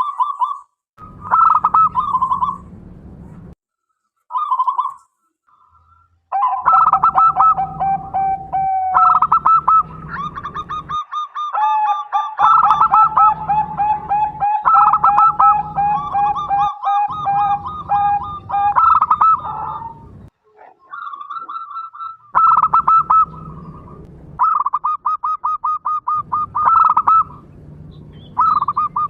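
Zebra doves (perkutut) cooing in repeated phrases of rapid pulsed notes, with a second, lower-pitched call overlapping in places as the birds answer each other.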